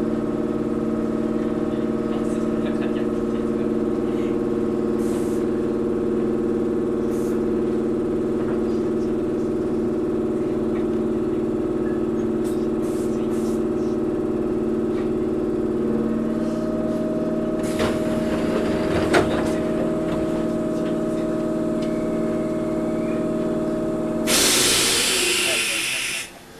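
Underfloor machinery of a Toyohashi Railway 1800-series (ex-Tokyu 7200) electric train humming steadily at several fixed pitches while the train stands still. The pitch shifts about two-thirds of the way in. Near the end a loud burst of compressed air hisses for about two seconds, and the hum cuts out as it ends.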